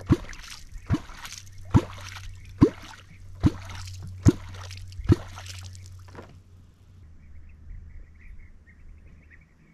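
A wooden catfish clonk struck on the river surface, about seven regular strokes a little under a second apart, each a deep plop that drops in pitch; the strokes stop about five seconds in. Clonking like this calls wels catfish up toward the bait.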